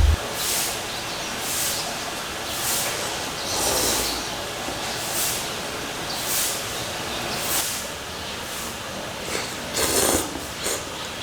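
A hiker moving along a trail: a soft hissing stroke repeats about once a second, like steps or breaths in walking rhythm, with a louder one about ten seconds in.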